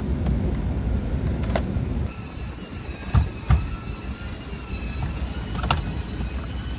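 Steering wheel being worked off its column with hand tools: a few sharp clicks and knocks, two loud ones close together in the middle, over a steady low rumble, with a faint steady high whine starting about two and a half seconds in.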